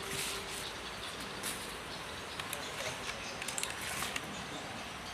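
Scattered keystrokes on an Aula mechanical keyboard with clicky blue switches: a few faint, sharp clicks over a steady hiss.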